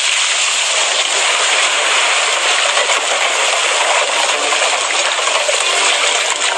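Steady loud rushing noise with no clear pitch and no separate knocks, holding an even level throughout.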